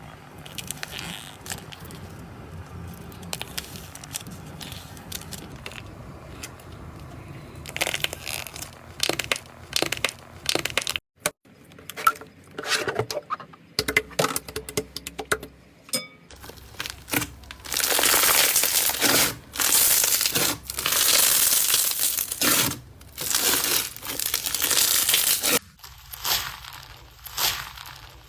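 Slime being squeezed and pressed by hand, crackling and crinkling, with loud crunching bursts through the second half. There are several abrupt changes of texture.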